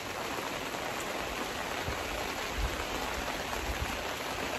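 Steady rain falling on and around a canopy tent, an even hiss of drops with a few low thuds about midway.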